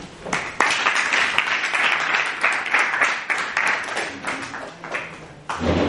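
A roomful of people applauding: dense clapping of many hands that starts just after the start and dies away about five seconds in.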